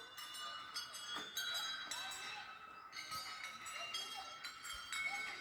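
Temple bells struck repeatedly at an uneven pace, their high ringing tones overlapping and sustaining between strikes.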